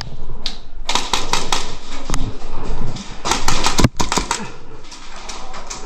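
Airsoft gunfire indoors: bursts of rapid sharp clicks and snaps, one cluster about a second in and a denser one around three to four seconds in.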